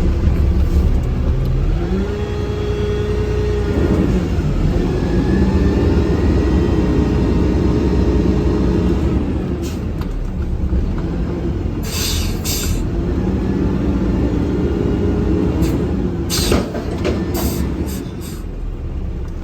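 Garbage truck's diesel engine running, heard from inside the cab. Its pitch climbs about two seconds in, holds briefly and falls back, and a few short sharp noises come later on.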